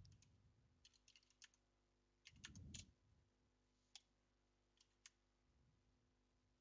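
Near silence, broken by a few faint, scattered computer keyboard key clicks.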